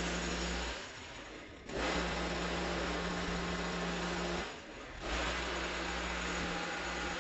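A motorised garden power tool running in bursts of about three seconds, dropping off briefly twice between them.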